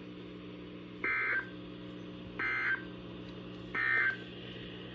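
NOAA Weather Radio Emergency Alert System end-of-message data bursts: three short buzzy bursts of digital tones, about one and a third seconds apart, marking the end of the warning broadcast. A steady low hum from the receiver runs underneath.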